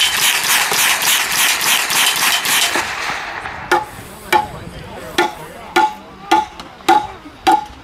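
Rapid automatic gunfire, about five shots a second, for the first three seconds. Then a 2x4 ramrod is struck about seven times with a hammer, roughly twice a second, to drive a 16-pound bowling ball down the barrel of a homemade bowling ball cannon. Each blow is a sharp knock with a short ring.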